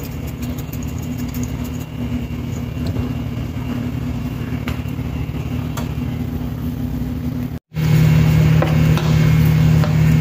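Steady mechanical hum of a laundry machine running, with faint small ticks over it. About three-quarters of the way through, the sound drops out for an instant and comes back as a louder, lower hum.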